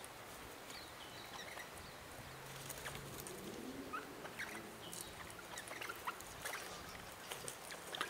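Faint scattered small clicks and taps, with a few short, rising bird chirps and a low steady hum underneath.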